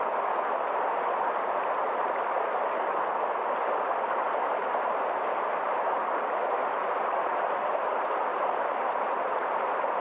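Mountain stream rushing over rocks in small cascades, a steady, unbroken rush of water.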